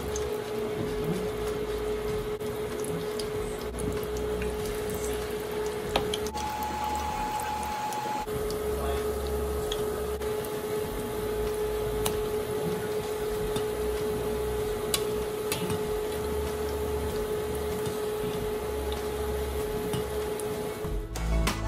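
Sardine fritters frying in hot oil in a pan, with a steady sizzle. A constant hum and whine come from the induction cooktop, and a few light clicks of the spatula and tongs against the pan.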